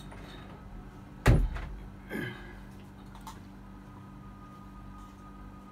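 A sudden loud knock about a second in, its pitch falling away quickly, then a weaker falling sound shortly after, over a steady low hum.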